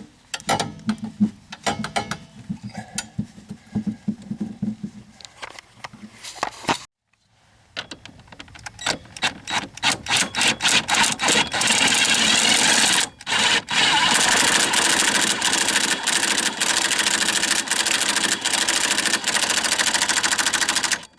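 Metal clanks and knocks as a new shock absorber is worked up into its mount, then a cordless impact driver set on its lowest setting hammering a shock mounting bolt in. The rapid impacts speed up into a continuous rattle, with one short pause.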